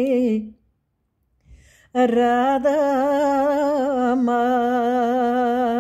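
A woman singing a Bulgarian folk song unaccompanied, holding long notes with vibrato and small ornaments. A held note ends just after the start, a short pause follows, and she comes back in about two seconds in on a long drawn-out "Rada…".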